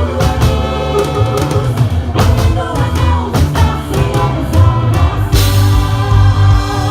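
Live gospel worship band playing a song, with a drum kit keeping a steady beat under a heavy bass line, and singing.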